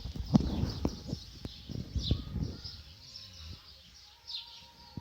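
An Akita dog snoring in its sleep: two snores, each about a second long, the second about two seconds in. Birds chirp faintly in the background.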